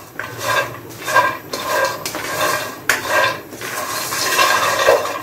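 Almonds being dry-roasted in a nonstick pan, stirred with a spatula: repeated strokes of the nuts rattling and sliding across the pan, with a sharp knock about three seconds in. They are being roasted until crisp.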